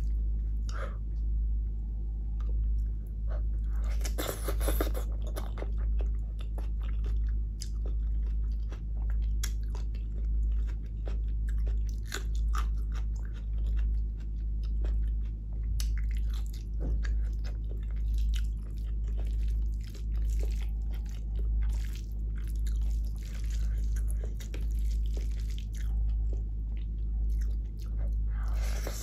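Close-miked chewing of mouthfuls of vegetable biryani and cauliflower curry eaten by hand: wet mouth clicks and chewing in a steady rhythm of about one chew a second. A steady low hum runs underneath.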